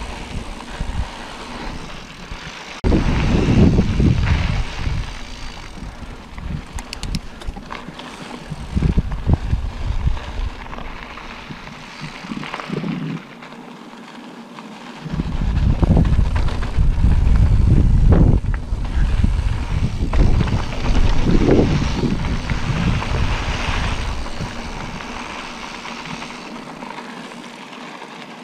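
Wind rushing over the microphone of a camera on a moving bicycle, with tyre noise from riding a dirt track; the low rumble surges in gusts, strongest about three seconds in and again from about fifteen seconds to twenty-four seconds.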